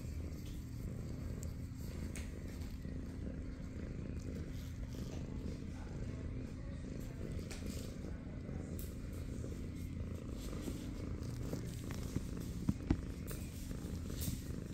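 Kitten purring close to the microphone, a steady low rumble, with two brief taps near the end.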